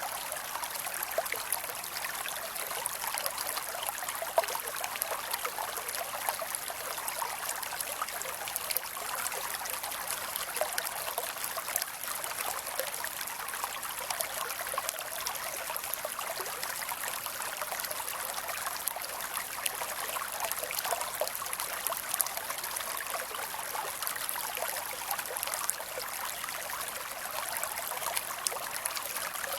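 Creek water running and trickling over rocks, a steady babble with many small splashes and little low rumble.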